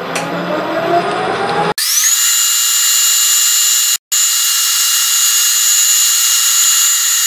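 Metal lathe turning down a shaft. It runs at first with a tone slowly rising in pitch, then changes suddenly, about two seconds in, to a loud, steady, high-pitched whine that briefly drops out about four seconds in.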